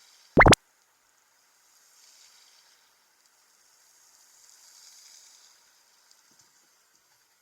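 A single short, loud water plop about half a second in, then a faint watery hiss that swells twice.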